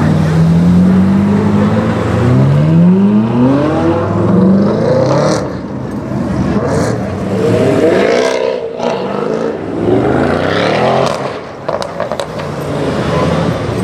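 Camo-wrapped Ferrari 458 Italia and Audi RS6 C7 and RS4 B8 V8 estates accelerating past one after another, engine notes climbing in pitch in about three separate pulls.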